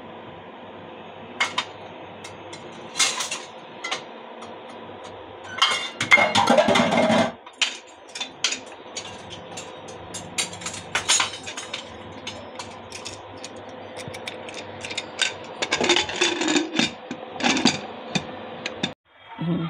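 Steady electric hum of an induction cooktop, under scattered clicks and metal clanks from a pressure cooker being closed with its lid. There is a louder clattering scrape about six seconds in, and more clanks near the end as the lid and whistle weight are set in place.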